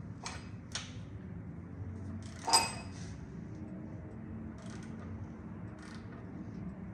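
Metal hand-tool clicks and one loud ringing metallic clink, about two and a half seconds in, as a long-handled wrench turns over the bottom end of a VW 2.0 TDI by hand, with a few lighter clicks around it and a steady low hum underneath.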